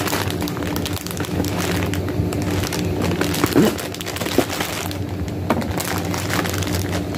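Clear plastic shipping bag crinkling and tearing as it is ripped open by hand, in irregular crackles with a louder crackle about three and a half seconds in.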